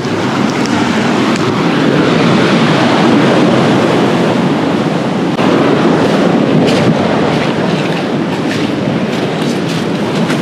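Wind buffeting the microphone: a loud, steady rushing noise, with a brief dip about five seconds in.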